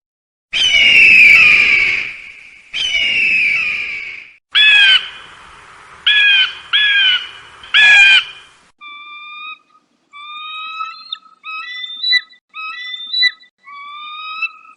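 Eagle calls: two long, harsh screams falling in pitch, then several short, sharp piercing cries. After that, from about the middle on, comes a run of thinner whistled piping notes.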